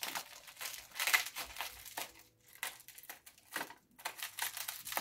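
Clear plastic wrapping crinkling in the hands in irregular bursts as a small wrapped package is unwrapped and cut open with scissors.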